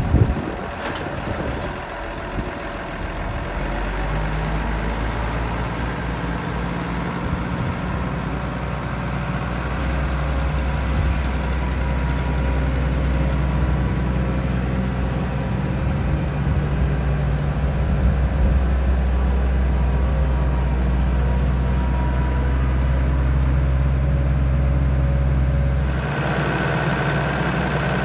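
Caterpillar Challenger rubber-track tractor's diesel engine idling steadily, with a brief thump right at the start.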